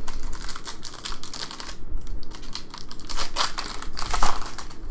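Trading cards being flipped through and slid against each other by hand: quick rustling and clicking of card stock, with a short pause about two seconds in.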